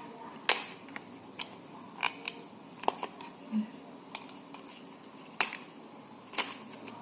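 Sharp, scattered clicks and taps of a lip-cream package and its plastic wrap being handled and opened, about seven separate ticks with short gaps between them.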